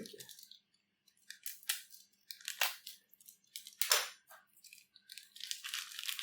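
Unboxing packaging being handled, rustling and crinkling in several short bursts, the last one longer, near the end.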